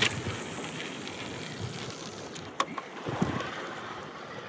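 Water lapping and splashing around a fishing kayak, with wind noise on the microphone. A few short, sharp sounds stand out at the start and again about two and a half and three seconds in.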